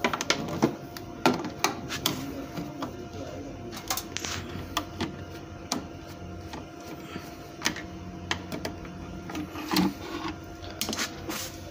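Screwdriver work on a Juki SC-510 sewing-machine control box: irregular clicks, taps and knocks as screws are turned out and the plastic cover is handled and opened, over a steady faint hum.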